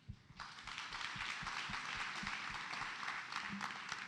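Congregation applauding, the clapping breaking out about half a second in and holding steady.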